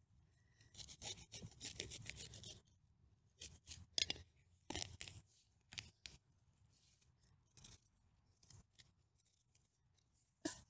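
Matted, root-bound cat palm roots being slit and torn loose from the root ball: a dense run of crackly rasping strokes for about two seconds, then single scrapes every second or so.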